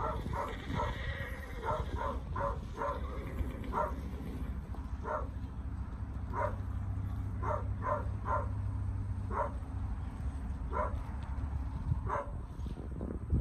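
A dog barking over and over in short single barks, roughly one a second but unevenly spaced, over a steady low rumble.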